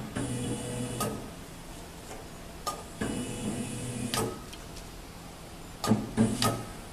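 Electric paper guillotine being operated: sharp mechanical clicks from its push button and mechanism, with a quick run of three clicks near the end. Between the clicks come two short stretches of a motor whirring.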